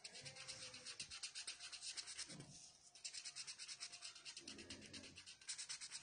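Felt-tip sketch pen scratching on paper in quick back-and-forth colouring strokes, many a second, with a brief pause about halfway through.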